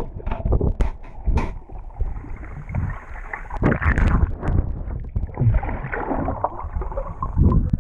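Water sloshing and swishing around a waterproof camera held in the water, coming in irregular surges and sounding muffled.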